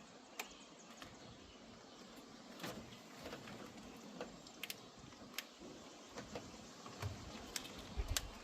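Scattered light clicks and taps of parts being handled, with a few low knocks and rumbles near the end.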